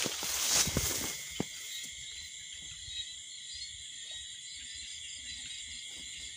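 A steady, high-pitched chorus of night insects such as crickets. Over it, in the first second or so, footsteps swish through grass.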